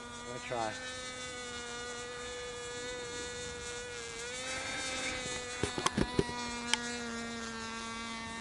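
Radio-controlled model airplane's motor droning steadily in flight, its pitch dipping briefly about four seconds in. A few short sharp clicks come around six seconds in.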